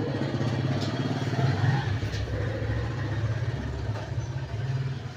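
A small engine running at a steady idle, getting somewhat quieter near the end.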